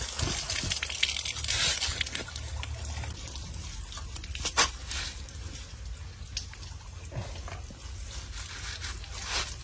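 Water splashing and dripping as it is tossed by hand over dead water snakes on a wooden stump, fading after about two seconds. Then quieter handling and rubbing of the wet snake skins, with a few sharp knocks, the loudest a little under halfway through.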